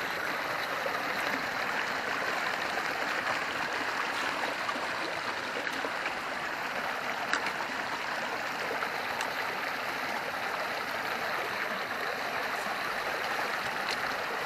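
Stream water rushing steadily, with a single faint click about seven seconds in.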